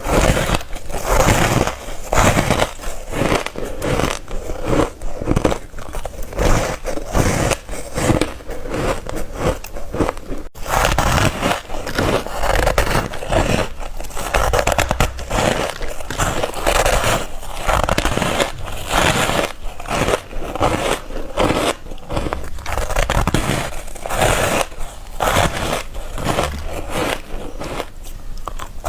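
Close-miked teeth biting and crunching through ice, bite after bite in quick succession, with a brief break about ten seconds in.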